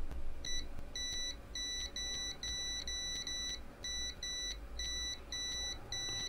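Multimeter continuity beeper sounding in about a dozen short, irregular beeps of one steady pitch, as a probe touches the pads of a burnt surface-mount component on a hard drive circuit board; each beep marks a closed circuit where the probe makes contact.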